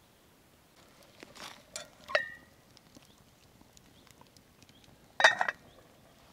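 A few light knocks, then a metallic clink with a short ring about two seconds in, and a louder rattling metal clatter a little after five seconds: metal camp cookware or utensils being handled.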